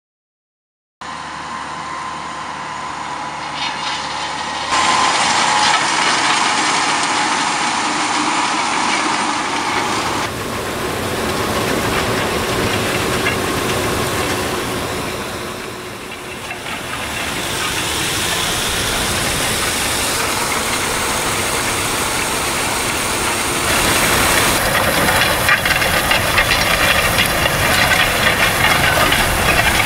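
Piket air seeder disc drill, drawn by a tractor, working in the field: steady engine and machinery noise. It starts about a second in and changes abruptly in level and tone at several cuts between clips.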